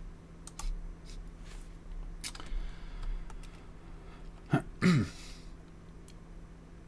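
A man makes a short throat-clearing sound about two thirds of the way in. Before it come a few faint clicks, all over a low steady electrical hum.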